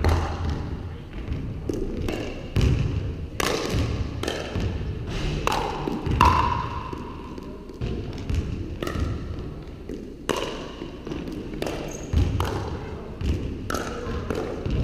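Pickleball rally: paddles popping against the hollow plastic ball and the ball bouncing on the hardwood floor, a dozen or so irregular sharp hits, some with a short ringing ping, echoing in the large gym.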